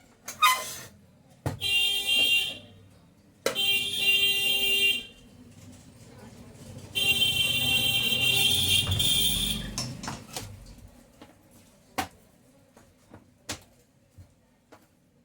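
A steady, alarm-like pitched tone rich in overtones sounds three times: two short blasts of about a second, then a longer one of about three seconds. A few sharp clicks follow near the end.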